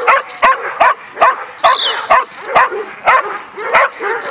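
A dog barking over and over in a fast, steady rhythm of about two to three barks a second.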